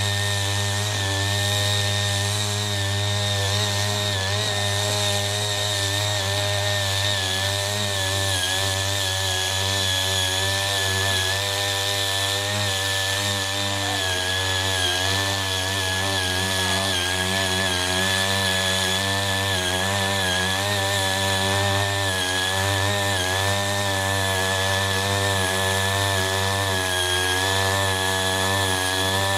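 Small engine of a CY80 foldable mini tiller running steadily at working throttle while its ridger cuts a furrow through soil, the pitch wavering slightly as the load changes.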